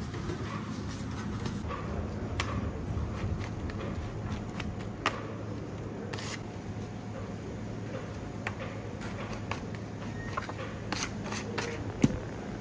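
A plastic scraper scraping roasted aubergine flesh off the charred skin on a metal counter: irregular scrapes and small clicks, with one sharper knock near the end, over a steady low hum.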